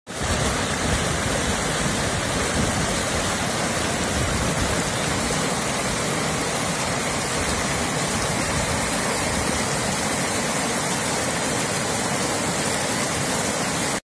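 Rushing water tumbling over rocks: a steady, loud, unbroken rush that cuts in abruptly.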